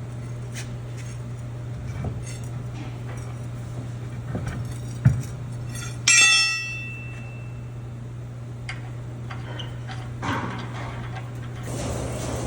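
Scattered ticks and knocks over a steady low hum, with one loud metallic clank about six seconds in that rings briefly and dies away.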